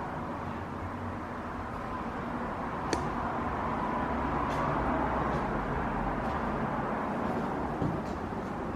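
Road traffic heard from inside the building: a steady hum of passing vehicles that swells through the middle and eases off again, with a couple of faint clicks.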